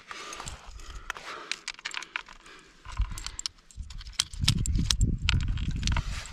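Climbing hardware clinking and tapping in quick irregular clicks as a climber moves up granite, carabiners and gear knocking against each other and the rock. From about four seconds in a loud low rumble sits underneath.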